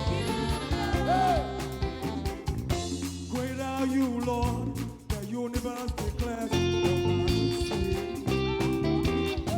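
Live gospel praise band playing, with guitar and a regular beat and some singing; the music drops back briefly about halfway through.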